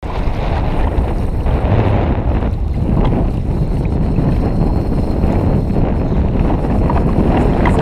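Strong wind buffeting the microphone on open, rough sea from a fishing kayak, a steady low rumble without a break.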